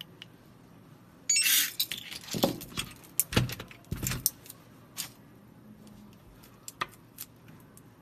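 FA822SD electronic fingerprint lock being opened with its remote controller: a loud half-second burst of noise with brief high beeps, then a run of metallic clicks and clunks from the lock's latch and handle.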